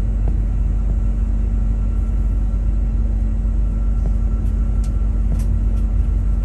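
Cabin noise inside a Bombardier CRJ-700 taxiing: a steady low rumble from its rear-mounted GE CF34 turbofans at taxi power, with a steady hum and a few faint ticks.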